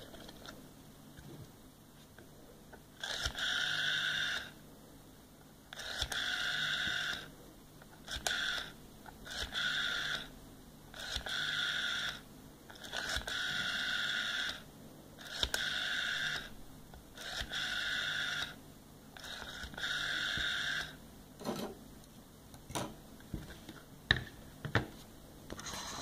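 Rotary telephone dial being dialled nine times. Each digit is a steady whirring buzz as the spring-driven dial spins back to rest, short for a 1 and long for an 8 or 0. Near the end come a few light clicks.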